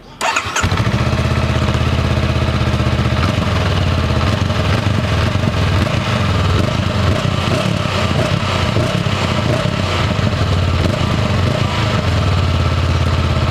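Honda CB500X's 471 cc parallel-twin engine heard at the stock exhaust. It comes in about half a second in and idles, its pitch shifting irregularly through the middle as it is revved, then settles back to a steady idle near the end. It is a mild, unexciting note that the rider finds close to that of a single-cylinder bike.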